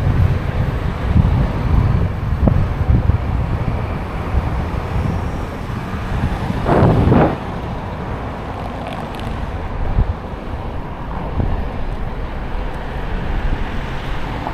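Wind buffeting the microphone over low rumbling road noise while riding an electric bike, with a brief louder whoosh about seven seconds in.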